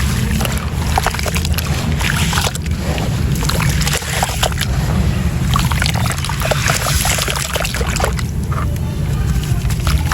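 Pink gritty sand-cement chunks being crumbled in water: many small crackles and wet sloshing over a steady low rumble.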